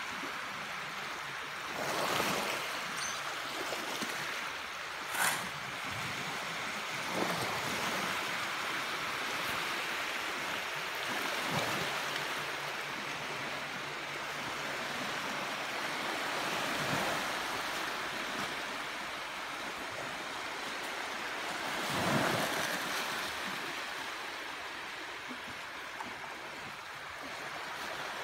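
Small waves breaking and washing up a pebble shore: a steady rushing wash that swells every few seconds, loudest about twenty-two seconds in. A short, sharp slap comes about five seconds in.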